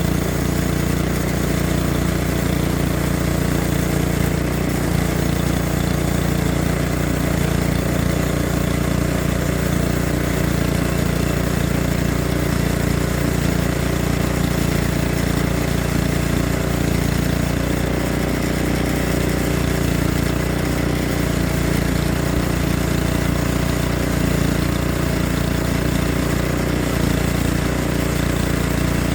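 Engine of a sawmill running steadily while milling hardwood.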